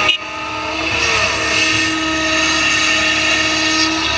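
Excavator's diesel engine running under load with a steady hydraulic whine, the pitch bending briefly about a second in as the machine swings its loaded bucket over the dump truck.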